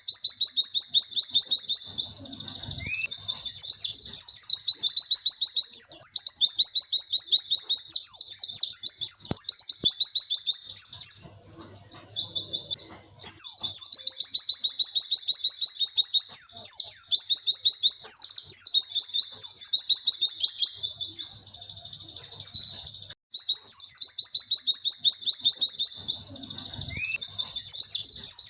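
A white-eye (pleci) singing long, rapid, high-pitched 'wit-wit' trills, nearly continuous, with two short pauses about twelve and twenty-two seconds in.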